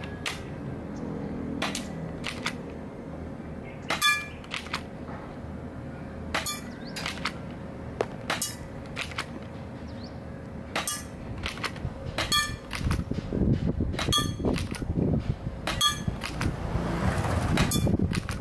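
Q1 Glock 18C spring airsoft pistol firing over a dozen shots, a second or two apart, with sharp snaps; several BBs strike a metal can target with a ringing clang. A low rushing noise builds in the last few seconds.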